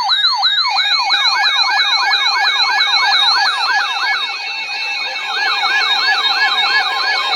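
Emergency alert attention signal: a loud electronic siren-like tone of rapidly repeating falling sweeps, about four a second, with a pulsed steady beep joining in under a second in. It is the warning tone that opens a broadcast severe thunderstorm warning.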